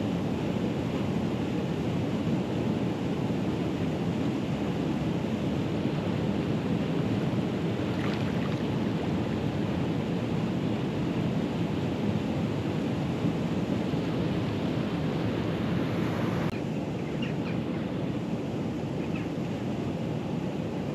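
Steady low rushing of wind buffeting the microphone outdoors, easing a little about three-quarters of the way through.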